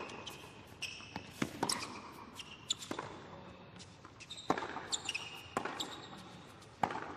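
Tennis rally on a hard court: sharp racket strikes and ball bounces every second or so, with sneakers squeaking on the court between them.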